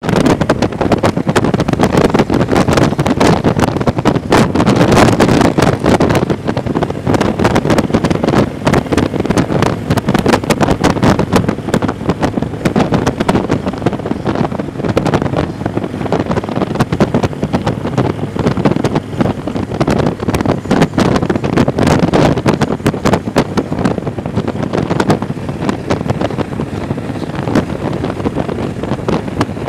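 Heavy wind buffeting the microphone of a moving motorcycle, irregular and loud, with the motorcycle's engine and road noise underneath.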